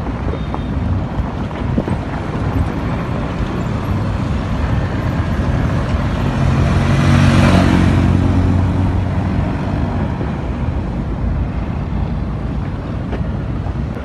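Wind rumbling on the microphone, with a motor vehicle passing close by: its engine and tyre noise swell to a peak about halfway through, then fade.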